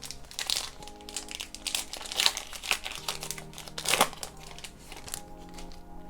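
Football trading cards being handled and sorted, making a run of short crinkling, rustling scrapes, with two louder ones about two and four seconds in. Soft background music plays underneath.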